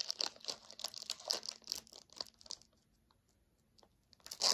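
Foil wrapper of a Pokémon card booster pack crinkling and tearing as it is opened: a quick run of sharp crackles for about two and a half seconds, a short pause, then one louder crinkle near the end.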